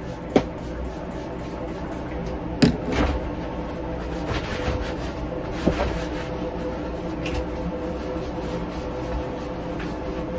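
Steady hum of a Boeing 737 cabin's air system, with a few sharp knocks and rubbing as a seat back is sprayed and wiped down.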